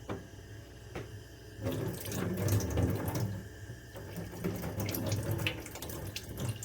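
Kitchen tap running water into a sink, starting a little under two seconds in, with splashing and small clatters; two light knocks come before it.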